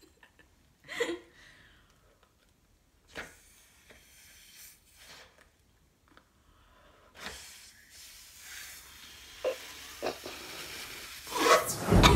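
A woman blowing breathy puffs into a condom to inflate it like a balloon, with a short laugh about a second in. A sudden loud burst of sound near the end.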